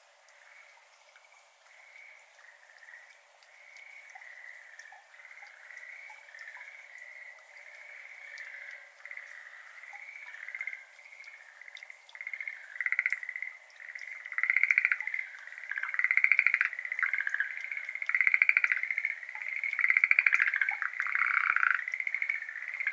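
Chorus of Schlegel's green tree frogs calling in short pulsed, rattling trills, one after another. It starts faint and swells into a loud, overlapping chorus over the first fifteen seconds or so.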